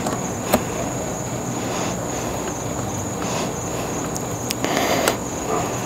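A few light clicks and a short rattle from a QuadLock motorcycle phone-mount head being worked loose by hand. There is a sharp click about half a second in and a cluster of clicks and handling noise near the end, over a steady hiss with a faint high whine.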